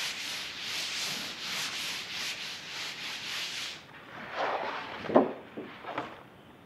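A hand rubbing briskly over a blotter sheet laid on dampened printmaking paper, about three swishing strokes a second, pressing excess water out of the paper. The rubbing stops about four seconds in, followed by a few louder paper rustles, the sharpest about five seconds in.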